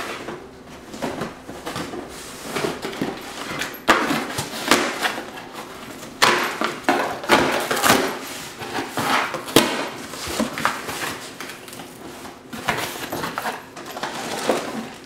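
A cardboard shipping box being opened and unpacked by hand: irregular rustling and tearing with scattered knocks and thumps from the box.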